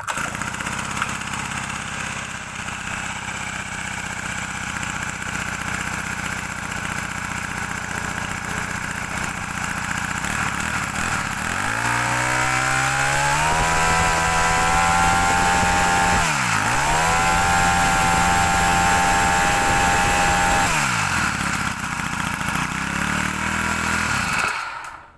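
Honda GX25 four-stroke brush cutter engine idling, then revved up about halfway through. The throttle is dropped briefly and opened again, then it falls back to idle and the engine is switched off just before the end.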